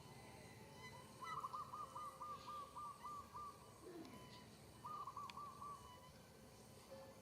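An animal's call: two runs of short, quick notes repeated at one pitch, about three a second, the first run about a second in and a shorter one past the middle.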